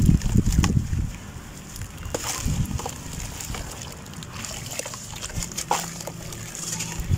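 Soft, dusty red dirt crumbled by hand into a tub of water, splashing and sloshing as the lumps break apart and fall in. There are heavier splashes at the start and again around two seconds in, with quieter swishing and crackle between.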